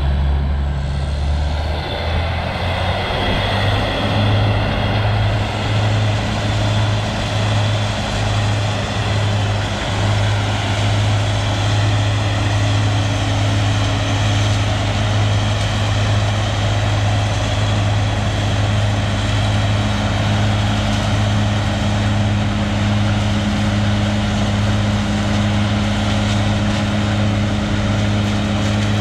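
Farm tractor engine running under steady load, a deep hum that steps up in speed about a second or two in and then holds steady.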